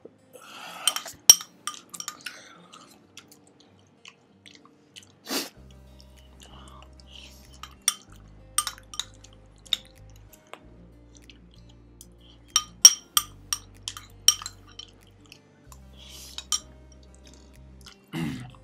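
Eating sounds from pani puri: chewing and crunching, with sharp clicks of a spoon against a small glass bowl. A soft background music bass line comes in about five seconds in.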